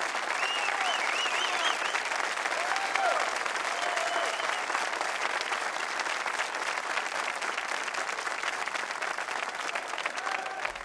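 A large crowd applauding: dense, steady clapping with scattered cheering voices over it, tapering off near the end.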